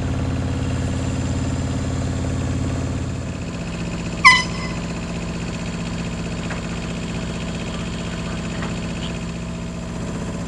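A sailboat's auxiliary engine running steadily under way; its low note changes and drops about three and a half seconds in. About four seconds in there is a single short, high chirp.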